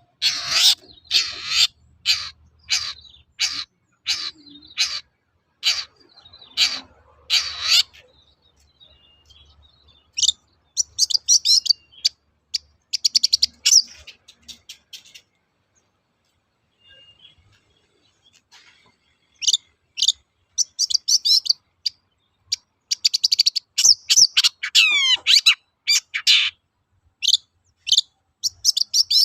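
Long-tailed shrike (cendet) calling. It first gives a run of harsh, rasping calls a little under a second apart, then after a pause breaks into bursts of quick chirping song, with a falling whistle in the later bursts.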